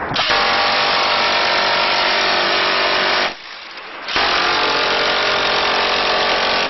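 Six-barrel electric minigun firing two long bursts, each an unbroken buzz of about three seconds, with a short pause between them a little over three seconds in.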